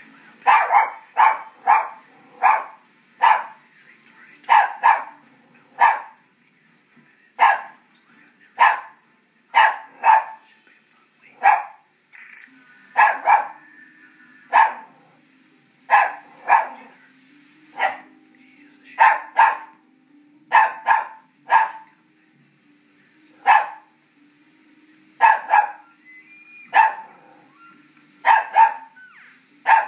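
Yorkshire terrier barking at a television: sharp, repeated barks, singly and in quick pairs, about one a second throughout.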